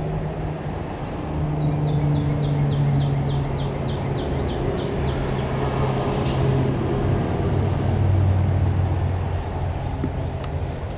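A motor vehicle's engine running, a steady low hum that drops in pitch about seven or eight seconds in. Over it, a quick run of high ticks or chirps, about three a second, in the first half, and a single sharp click a little after halfway.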